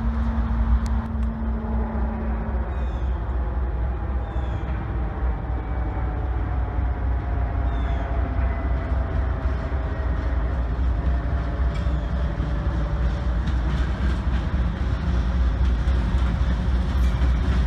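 Approaching CSX diesel locomotives, a steady low rumble that grows a little louder near the end as the lead unit comes up to the crossing.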